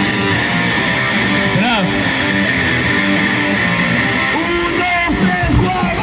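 Heavy metal band playing live: distorted electric guitar riffing, with the sound turning heavier and fuller in the bass about four and a half seconds in, and voices shouting near the end.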